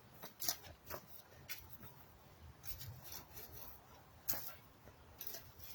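Digging into garden soil to lift potatoes: a few irregular scrapes and crunches of dirt being worked, the loudest about four seconds in.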